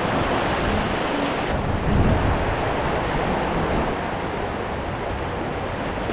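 Fast Provo River rapids rushing over rocks: a steady, even rush of white water, with a brief low rumble about two seconds in.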